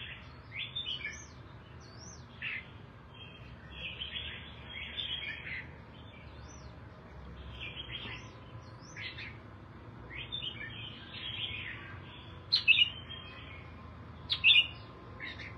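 Red-whiskered bulbul singing: short, varied chirping phrases again and again, with two louder sharp calls near the end.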